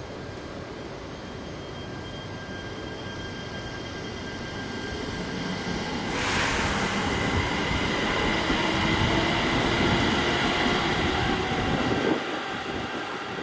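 E3 series Shinkansen train departing a station, with electric running noise, a few steady whining tones and wheel-on-rail noise. It grows louder about six seconds in as the train gathers speed, then falls away near the end.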